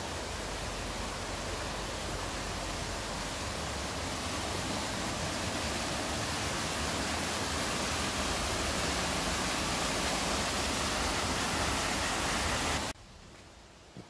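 Steady rushing of falling water, growing a little louder and then cutting off suddenly near the end.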